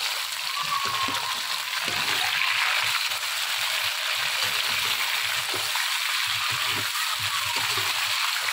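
Chicken pieces and sliced onions sizzling steadily in hot ghee in a large pan, fried until the meat turns from pink to white. A metal slotted spoon stirring them gives short scraping knocks against the pan.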